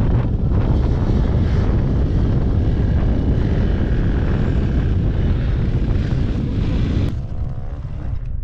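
Wind buffeting the microphone over a motorcycle's running engine while riding, a loud, steady roar. The roar drops away about seven seconds in.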